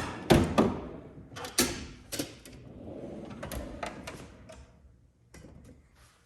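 Snap-on tool chest drawer being worked: a string of sharp metal clacks and rattles, then the drawer sliding on its runners for about two seconds, and two more clicks near the end.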